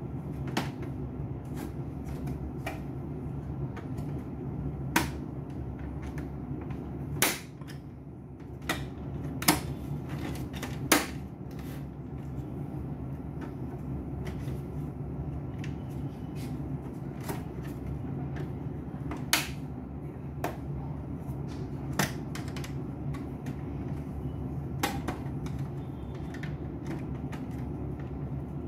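Sharp clicks and snaps of plastic parts as an HP LaserJet printer's scanner unit is handled and fitted by hand, about a dozen at irregular intervals, over a steady low hum.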